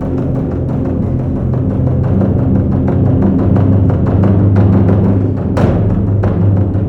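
Live drumming: a fast, continuous run of strikes over a deep low rumble, with one sharper accented hit about five and a half seconds in.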